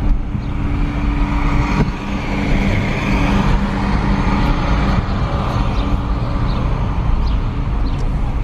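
A vehicle driving, with a steady engine and road drone over a heavy low rumble. A steady hum fades out about three and a half seconds in.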